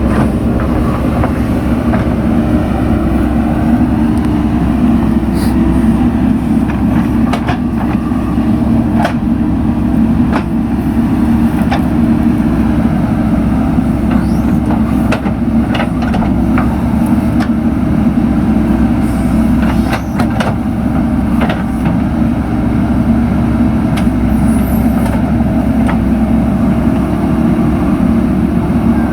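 JCB 3DX backhoe loader's diesel engine running steadily under working load, with scattered short clanks and knocks from the machine and its bucket at work.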